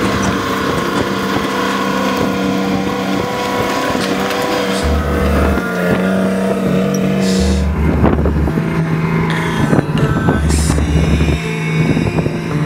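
FV432 armoured personnel carrier driving over a muddy dirt track, its engine running and its tracks clattering, from about eight seconds in many short knocks, with music mixed underneath.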